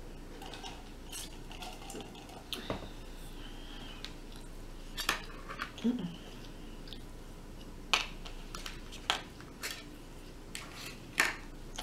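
Metal fork and knife clicking and scraping against a plate while cutting roasted chicken, a series of sharp irregular clinks.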